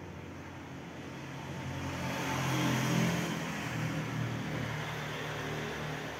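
A motor vehicle's engine running nearby, growing louder to a peak about three seconds in and then carrying on steadily.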